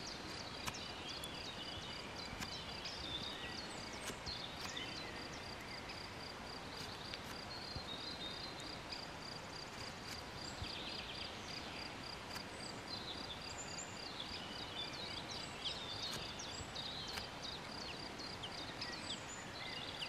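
Outdoor natural ambience: a high, rapid, evenly pulsing note runs on with a few short breaks, over a steady hiss, with scattered brief bird chirps and a few faint clicks.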